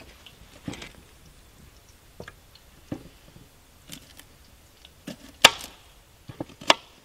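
Kitchen knife chopping food on a plastic cutting board: irregular single knocks, the loudest about five and a half seconds in.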